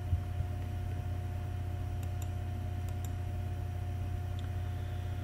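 Steady low electrical hum and a faint steady tone from the recording setup, with a few faint short clicks a little after the middle.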